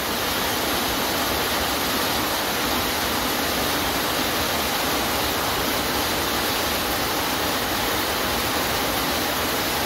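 Heavy rain falling: a steady, dense hiss of rain with no breaks.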